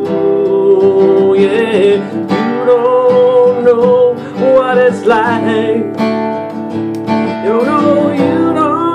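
Acoustic guitar strummed in a steady rhythm while a man sings long held notes over it.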